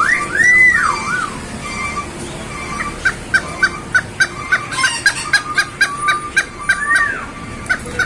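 Caged chickens calling: a few rising-and-falling calls at the start, then from about three seconds in a run of short, repeated calls about three a second.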